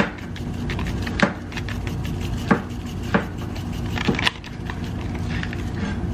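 Irregular sharp clicks and taps of a plastic seasoning shaker being shaken and knocked over an open plastic zip-top bag of flour, over a steady low hum.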